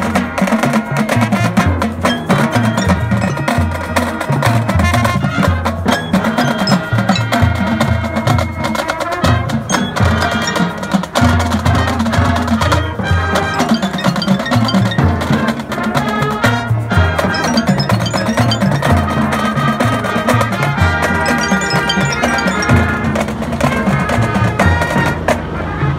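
Marching band playing its show opener at full volume: brass chords over marching drums with a pulsing low beat, with bell-like mallet tones among them.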